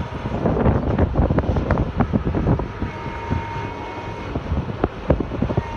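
CAT 315D excavator's diesel engine and hydraulics working, with a rapid run of metallic clanks and knocks over the first two and a half seconds, then a steady high whine for about a second and a half.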